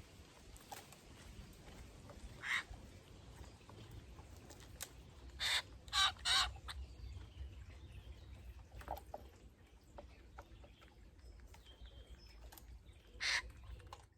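Eurasian jays giving harsh, rasping screech calls: one, then three in quick succession, then one more near the end.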